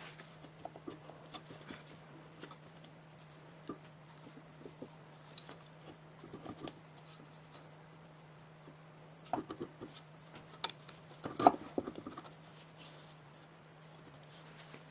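Workbench handling sounds: light taps, scrapes and clicks of tools and parts, with a run of sharper knocks and clatter about nine to twelve seconds in. A steady low hum sits underneath.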